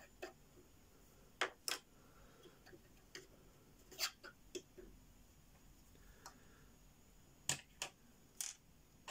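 Light clicks and taps of Lego plastic pieces being handled, about ten scattered irregularly, some in quick pairs.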